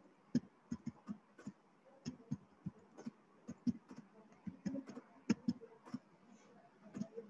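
Irregular light clicks and taps, a few a second, with uneven spacing and some louder than others.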